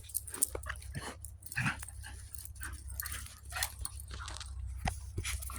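Puppies making short, scattered vocal sounds while they play in snow.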